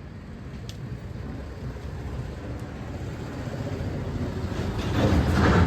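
Street traffic: a motor vehicle's low engine rumble grows steadily louder and passes close about five seconds in.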